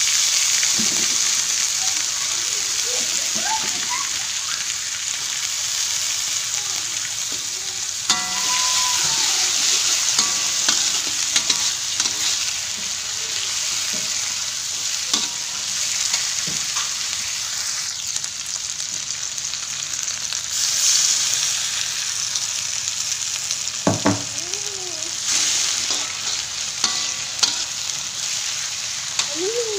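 Water spinach (kangkung) stems sizzling steadily in hot oil in a wok, stir-fried with a metal spatula that scrapes and clicks against the pan now and then.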